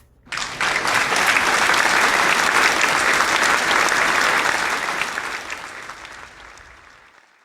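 Applause, a dense patter of clapping that starts suddenly and fades out over the last few seconds.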